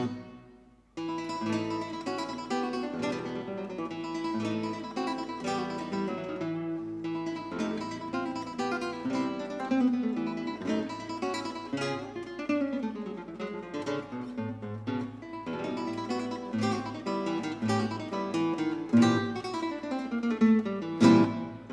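Background music played on acoustic guitar, plucked notes and strummed chords; it starts up after a short break about a second in.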